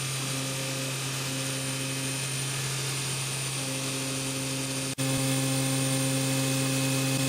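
CNC high-speed milling machine running steadily while machining metal: a constant hum with steady whining tones over a hiss. About five seconds in the sound breaks off for an instant and resumes slightly louder.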